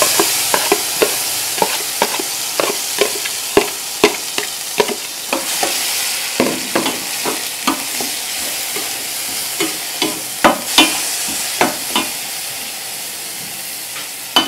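Sweet corn kernels sizzling in hot oil in a stainless steel pan, loudest as the corn goes in, while a spatula stirs them, clicking and scraping against the pan about twice a second.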